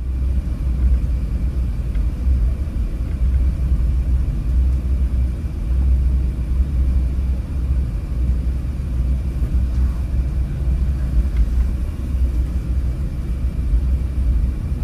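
Cabin noise inside an Airbus A380 taxiing: a steady low rumble from the engines and the aircraft rolling over the taxiway, with a faint steady whine above it.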